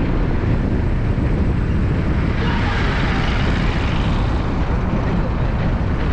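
Steady rush of wind and road noise from a moving vehicle, with a heavy low rumble of wind buffeting the microphone.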